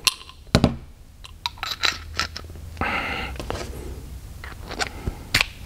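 Light metallic clicks and a short scrape as an FX airgun regulator is handled and slid into the aluminium test sleeve of a regulator tester; a few sharper clicks near the end.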